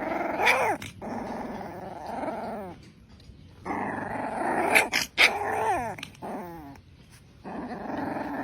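A puppy growling in long stretches, broken by short yips and a few falling whines, with brief pauses about three and seven seconds in.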